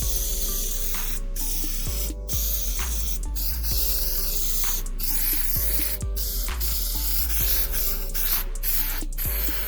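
Aerosol spray adhesive hissing from the can in repeated bursts, broken by short pauses, over background music.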